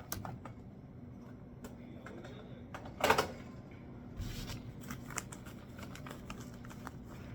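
Paper cash being handled and counted: soft rustling and light clicks, with one louder handling noise about three seconds in.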